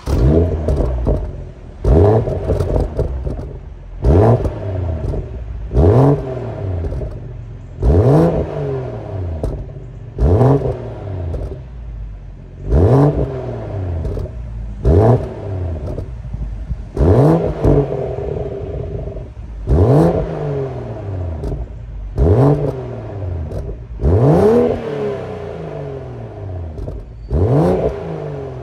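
BMW M240i's three-litre turbocharged straight-six, stock apart from an M Performance exhaust, free-revving at standstill: quick throttle blips about every two seconds, each rising sharply and falling back with crackles from the exhaust as the revs drop.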